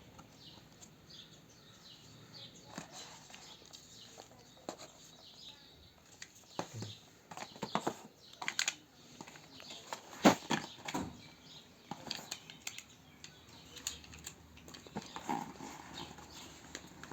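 Irregular clicks, taps and rustling from handling and unpacking a tablet's box and packaging, busiest in the middle with one sharp loudest click about ten seconds in.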